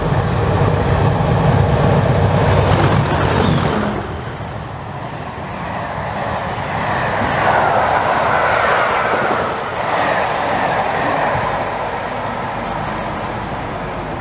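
West Coast Railways Class 37 diesel locomotives thrash through at speed under power, their English Electric V12 engines loudest in the first four seconds as they pass. The coaches' wheels then rumble and clatter over the rail joints as the train runs by.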